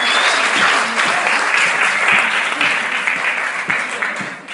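Audience applauding after a song, with a few voices calling out; the clapping thins out near the end.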